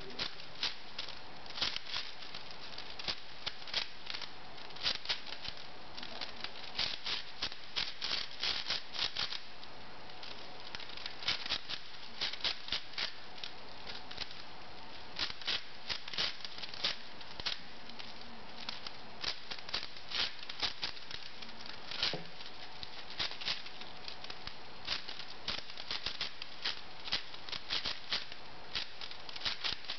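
V-Cube 6 (6x6x6 puzzle cube) being turned fast by hand: a continuous stream of plastic clicks and clacks from its layers, coming in quick irregular runs.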